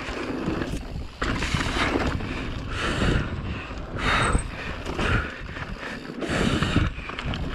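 Giant Reign Advance mountain bike descending a dirt trail at race speed: wind rushing over the microphone, with tyre noise and the bike rattling over bumps in irregular surges.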